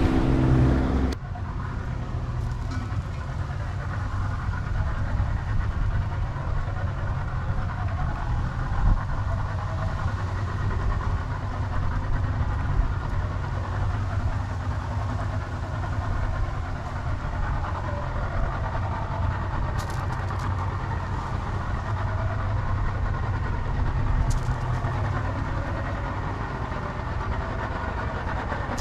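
Outboard boat motor running steadily underway, a continuous low engine rumble with wind and water noise over it.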